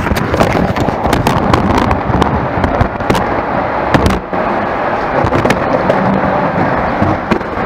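Loud rustling and crackling of a camera microphone rubbing against clothing or a bag, with many sharp clicks.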